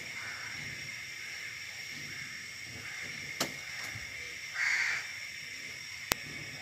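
Gas burner flame hissing steadily under a roti held in metal tongs to puff it. Two sharp clicks, about three and a half and six seconds in, and a brief harsh noise about four and a half seconds in.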